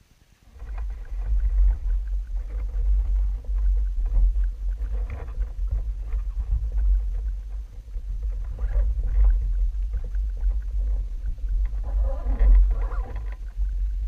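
Wind buffeting the camera microphone: a loud, gusty low rumble that comes in suddenly about half a second in and cuts off at the end, with some lighter rustling near the end.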